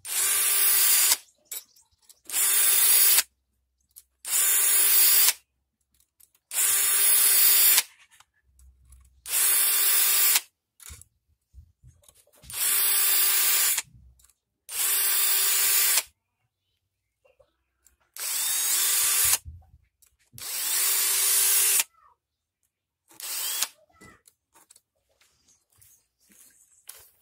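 Cordless drill spinning a round chainsaw file against the saw chain's cutter teeth, filing each tooth in a short run of about a second with a steady motor whine and grinding hiss, about ten runs with short pauses between.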